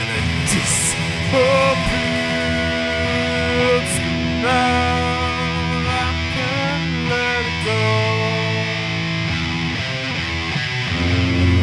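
Hard rock band playing live, electric guitars to the fore, with sustained lead notes that bend and waver in pitch.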